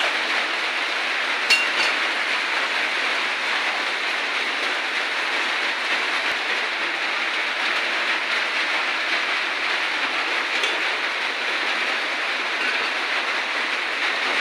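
Food frying in a pan: a steady, unbroken sizzle.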